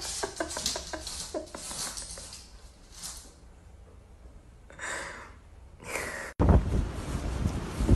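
Light clicks and rattles from a wooden kitchen drawer on its metal runners as a cat paws at it. Later come two short breathy puffs. About six seconds in, the sound cuts abruptly to wind buffeting the microphone.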